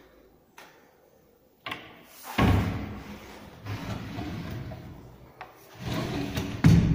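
Kitchen cabinet drawers being pulled open and pushed shut on their runners: sliding rumbles between several knocks. The loudest knock comes near the end.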